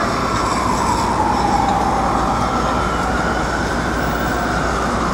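Loud, steady city traffic noise, with a high whine that sinks in pitch and then slowly climbs again.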